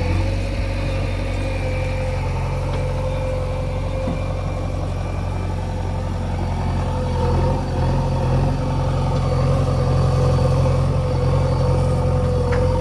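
Heavy diesel engine running steadily at an even speed, a low drone with a steady whine above it.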